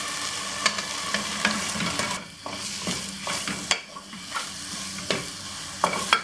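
Onion-tomato masala sizzling in oil and ghee in a pressure cooker as powdered spices are stirred in, with a wooden spatula scraping and tapping against the pot. The sizzle is steady at first and grows quieter about two seconds in, leaving the spatula's strokes more prominent.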